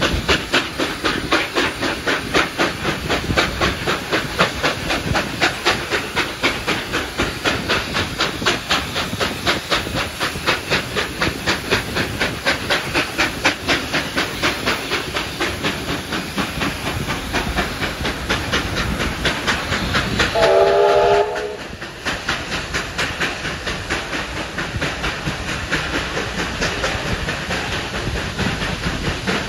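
Steam locomotive 3801, a NSWGR 38 class 4-6-2, working hard up a steep grade, its exhaust beating fast and evenly, heard from a carriage of the train it is hauling along with rail noise from the carriages. About 21 seconds in it sounds one short, loud blast on its chime whistle.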